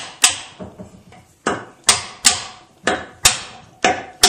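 A hammer striking a steel drift, driving a tapered oak peg through the offset hole of a draw-dowelled mortise-and-tenon joint: about seven or eight sharp, ringing blows, several in quick pairs. The later blows carry a clearer ringing note as the peg bottoms out and the joint firms up.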